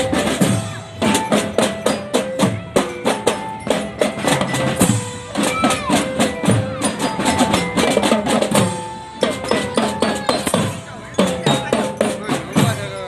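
Music with drums and percussion: rapid, regular percussive hits under held and sliding melodic notes.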